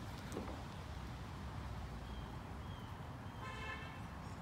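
Quiet background noise, with faint short high tones a little after two seconds and a brief faint call about three and a half seconds in.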